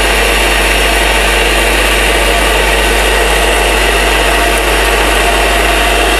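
Electric mixer grinder's motor running steadily at full speed, grinding dry dal into besan (gram flour). The sound is loud and unbroken.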